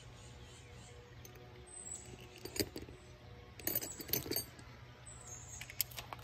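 Metal hand tools clinking and rattling against each other: a couple of light clinks about two and a half seconds in, a busier rattle around four seconds, and a few more clinks near the end.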